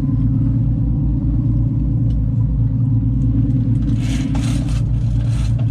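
Sport-fishing boat's engine running with a steady low drone. A few short bursts of hiss come about four seconds in.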